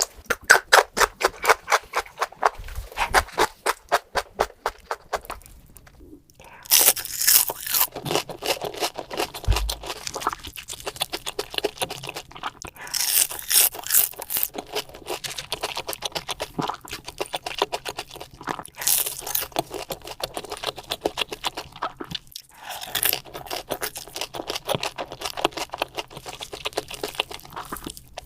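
Close-miked crunching and chewing of food, with sharp, evenly paced crunches about four a second at first, a short pause about six seconds in, then more crunching with several louder bites.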